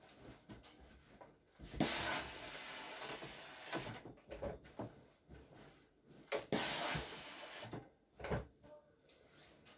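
Steam iron hissing in two bursts of steam, one about two seconds in lasting about two seconds and a shorter one near seven seconds, with knocks of the iron against the ironing board in between.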